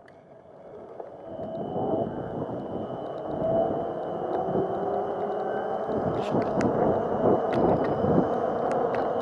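Razor MX500 electric mini dirt bike pulling away and riding: a motor whine that rises in pitch over the first few seconds as it gathers speed, with tyre and wind noise building under it. A few sharp clicks come in the second half.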